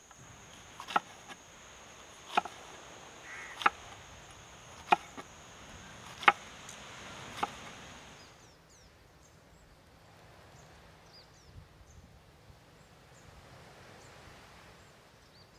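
Knife chopping green capsicum on a wooden cutting board: six evenly spaced chops, one a little more than every second, over a steady high insect drone. About halfway through the chopping and the drone stop, leaving faint bird chirps.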